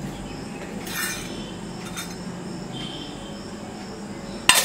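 Stainless steel chiratta puttu maker parts clinking as they are handled: a faint clink about a second in, then a sharp metal clink near the end.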